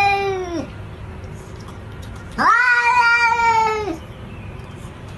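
A cat meowing in long, drawn-out calls: one meow tails off with a falling pitch about half a second in, then a second meow lasting about a second and a half rises at its start, holds, and falls away at its end.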